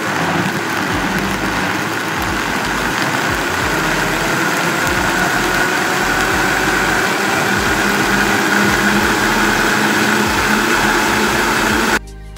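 Vitamix 5200 blender running at speed, blending frozen watermelon, banana and milk: a loud steady motor whine whose pitch creeps up slightly as the variable speed dial is turned up, stopping suddenly near the end.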